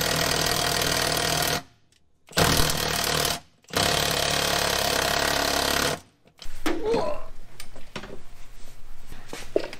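Cordless impact driver hammering on the front seat's mounting bolts in three bursts of a second to a few seconds each, with short pauses between them. From about six seconds in come lighter clunks and rattles as the loosened seat is lifted and moved.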